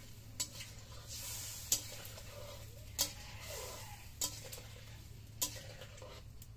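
Metal spatula stirring curry in an iron karahi, knocking sharply against the pan five times, a little over a second apart, with the watery curry sizzling faintly underneath.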